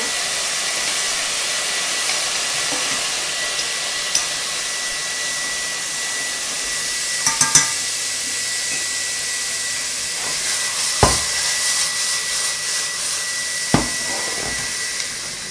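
Rabbit meat sizzling in hot olive oil in a frying pan: a steady hiss with a thin steady high tone over it. A few sharp knocks of cookware come about halfway through, near the end of the second third and again near the end.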